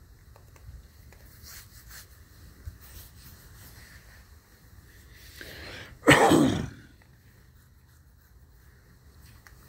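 One loud human sneeze about six seconds in, preceded by a short drawn-in breath. In the first few seconds there are faint clicks and crunches as a raccoon eats dry dog food.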